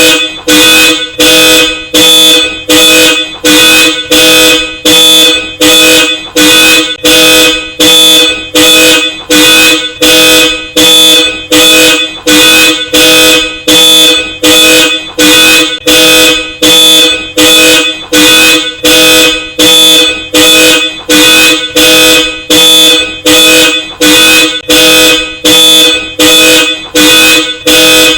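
Car alarm sounding through Hella Supertone two-tone horns: a loud, evenly repeating honk, about three blasts every two seconds, without a break.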